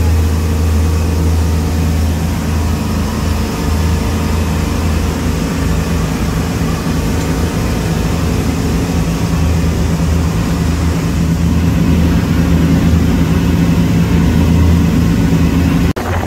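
Motorboat engine running steadily at cruising speed, a constant low drone under the rush of wind and water from the moving hull. The sound drops out briefly near the end.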